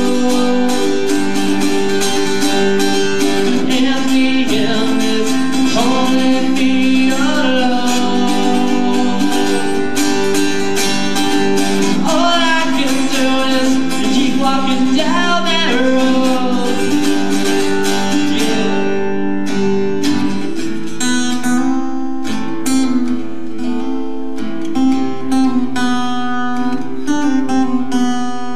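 Acoustic guitar music with a singing voice; the voice drops out at about 17 seconds and the guitar carries on alone with plucked notes.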